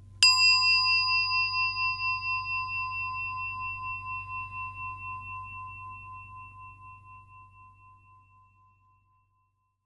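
A small bell, of the singing-bowl kind, struck once to mark the close of a section of the recited sutta. It rings with a clear, wavering tone that slowly fades out over about nine seconds.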